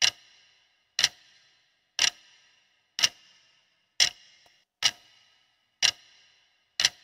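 Clock-tick sound effect of a quiz countdown timer: eight sharp ticks, about one a second, each with a brief ringing tail, counting down the answer time.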